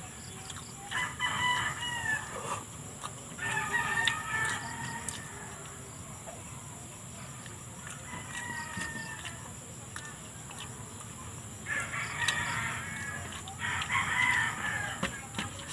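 Roosters crowing about five times in turn, a second or two each, some crows fainter than others.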